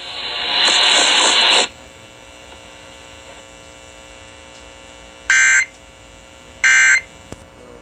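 Emergency Alert System end-of-message: two short loud digital data bursts about a second apart, about five and seven seconds in, played through a computer speaker. Before them, a burst of hiss from the broadcast cuts off abruptly, leaving a faint steady hum.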